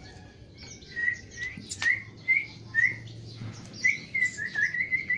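Baby birds chirping: a series of short, high chirps starting about a second in and coming faster and closer together near the end.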